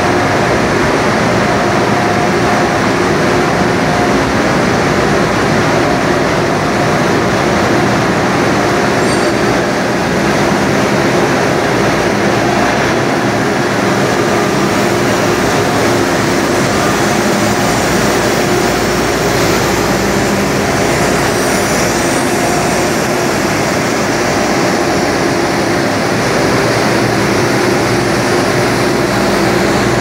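Loud, steady industrial din of a running aluminium melting and holding furnace line: an even rushing noise with a few steady hums underneath, unchanging throughout.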